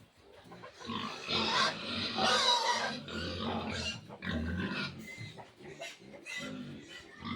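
Three-day-old piglets squealing and grunting, starting about a second in and going on and off.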